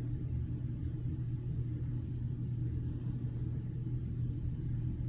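A steady low hum or rumble, unchanging throughout.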